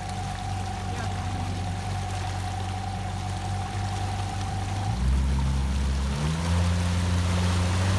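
Mercury 60 EFI Bigfoot four-stroke outboard running as the pontoon boat moves, with water rushing and churning behind the stern. The sound gets louder and higher about halfway through as the boat speeds up.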